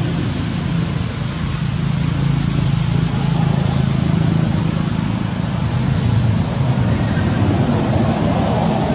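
Steady outdoor background noise: a low, even hum with a constant high hiss over it.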